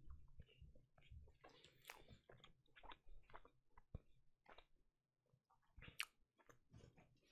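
Faint close-miked mouth sounds of a person chewing a mouthful of burger: soft wet smacks and clicks, with one sharper click about six seconds in.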